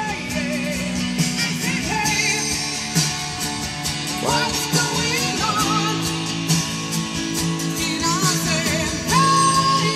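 Music: a song with a singing voice over instrumental backing and a steady beat.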